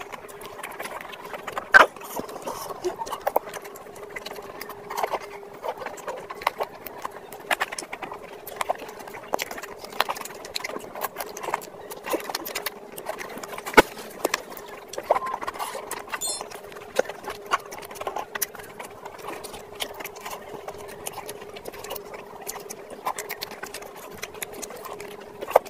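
Close-miked ASMR eating: chewing and wet lip-smacking of a mouthful of chicken curry and fried rice, a dense, irregular run of sharp wet clicks over a steady faint hum.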